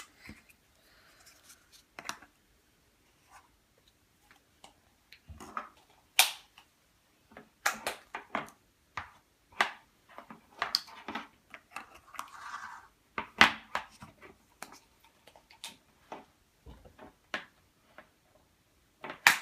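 Irregular clicks and taps of plastic Play-Doh toys and tools being handled, with a couple of soft rubbing sounds.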